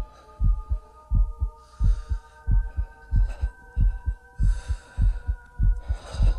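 Heartbeat sound effect: low double thumps, a pair about every 0.7 seconds, over a steady drone of several held tones.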